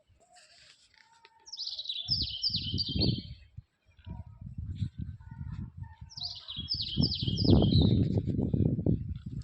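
A bird sings twice, each time a short run of about five quick, falling high notes, about one and a half seconds in and again about six seconds in. Underneath is a choppy low rumbling noise that is loudest near the end.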